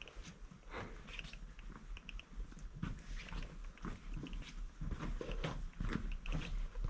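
Footsteps in a tunnel: an irregular run of crunching and clicking steps with dull thuds under them, getting louder toward the end.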